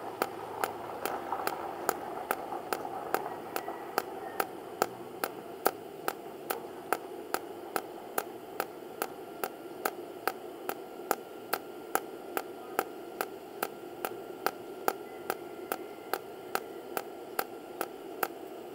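Tenya TIG250PC inverter TIG welder in cold-TIG pulse mode: the arc fires in short, high-current pulses, each a sharp crack, about five every two seconds, evenly spaced, over a steady hiss.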